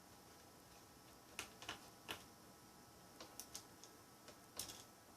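Faint, irregular small clicks and ticks of a screwdriver working the tiny screws around a laptop's screen bezel, about nine in all, starting a little over a second in.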